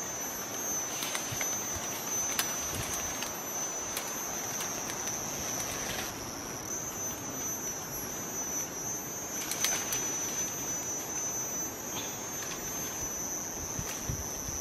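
Steady high-pitched drone of insects calling, a continuous ringing tone with a few short sharp clicks scattered over it.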